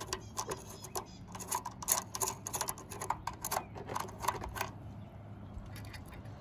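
Quick, irregular small clicks of hands working the wire terminal screws on a hot water system's heating element, tightening them a little past finger tight; the clicking stops about four and a half seconds in.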